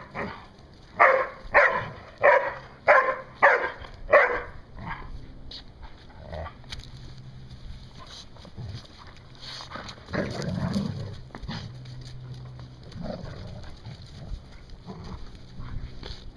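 Labrador play-barking during a game of tug: about six barks in quick succession in the first four seconds, then a quieter low growl about ten seconds in.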